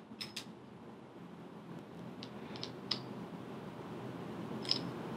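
A few faint, sharp clicks and taps of a metal spool being handled and taken out of a Shimano Curado BFS baitcasting reel's frame, over a low steady hiss. The clicks come in small groups: at the start, around the middle and near the end.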